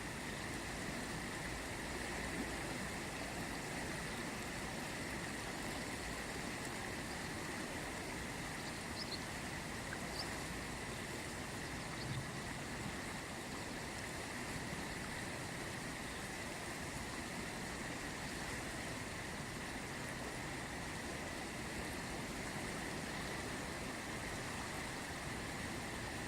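The Ganges river flowing: a steady, unbroken rush of water, with a few faint small clicks near the middle.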